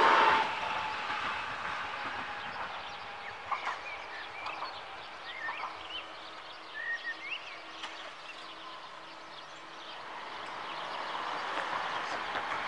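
The rolling noise of a class 440 electric multiple unit cuts away within the first half-second as the train clears the crossing. Birds chirp in short rising calls, over a faint steady hum from the crossing barriers as they rise. Near the end, the noise of an approaching car builds.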